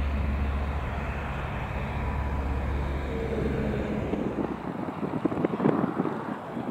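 Single-engine propeller light aircraft flying by with a steady engine drone. The low drone drops away about four and a half seconds in, leaving rougher gusty noise, likely wind on the microphone.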